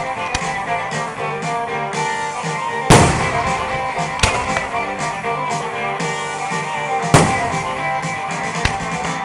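Guitar-led music plays steadily. Firework bangs break through it, a loud one about three seconds in and another about seven seconds in, with fainter pops between.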